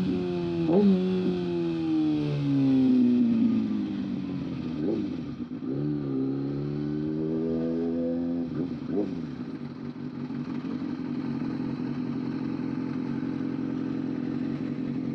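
Kawasaki ZX-6R inline-four engine through an aftermarket exhaust, blipped at the throttle. The engine note falls away, climbs again with another blip, then settles into a steady idle for the last five seconds.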